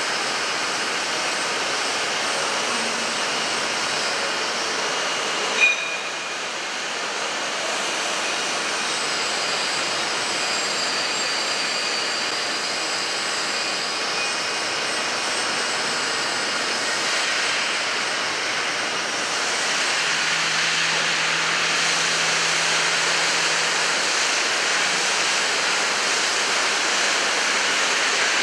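Large horizontal boring and milling machine (Droop & Rein D 175 V) running, a steady mechanical noise with faint whining tones that drift in pitch. A single sharp knock comes about five and a half seconds in, and a low hum joins about two-thirds of the way through.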